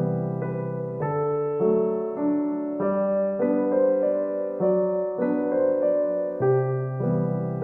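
Background music: a gentle electric piano melody over sustained chords, notes changing about every half second.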